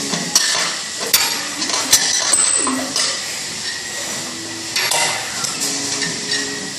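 Gym equipment clinking and knocking as a bar is pressed overhead on a padded bench, sharp metallic clicks roughly once a second, over a steady hiss.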